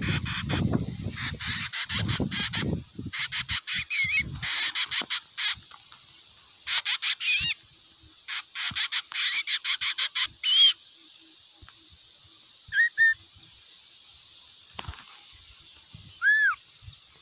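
Hair-crested drongo calling: rapid runs of metallic clicking, chattering notes in bursts, with a few slurred whistles. After about ten seconds the calling thins to a couple of single slurred whistles. A low rumble sits under the first few seconds.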